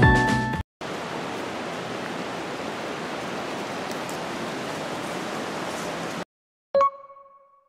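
Background music stops right at the start, then a steady outdoor rushing noise. Near the end a film-camera shutter sound effect clicks once with a short ring.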